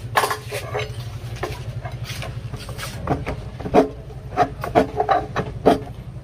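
Laminate edge banding being trimmed by hand: a series of short, uneven scraping strokes of a blade or file against the board's edge, with faint voices in the background.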